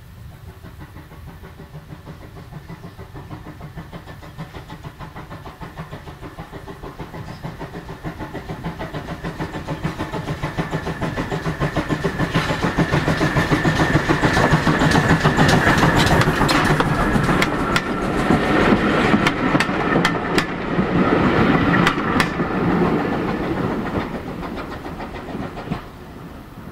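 GWR 6400 class pannier tank locomotive no. 6430 working a two-coach train: its steam exhaust beats at a steady rhythm, growing louder as it approaches and passes close by. The wheels then click over the rail joints as the coaches go past, and the sound fades near the end.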